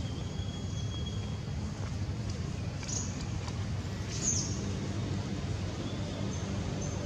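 Outdoor ambience: a steady low rumble with faint, brief bird chirps about three seconds in, again a second later, and near the end.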